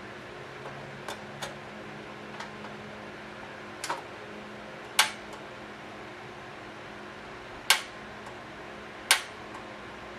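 Sharp clicks and knocks from handling a portable gas stove and its parts: a few faint ones early, then louder single clicks every second or two, over a steady low hum.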